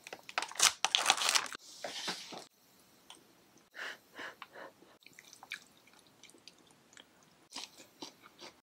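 Plastic lid of a takeout pho container crackling as it is pulled open, loudest over the first two and a half seconds. Then softer scattered clicks and taps as a fork and spoon lift meat and noodles from the container.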